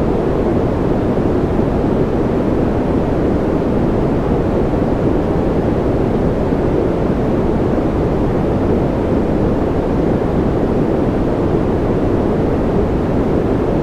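Continuous steady white noise for sleep masking, deep and rushing, with no changes or separate drops.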